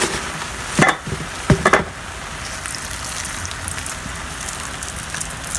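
Whole shrimp sizzling steadily as they dry-roast in a pan over a burner, still in a little of their own liquid before any oil goes in. Two short knocks come within the first two seconds.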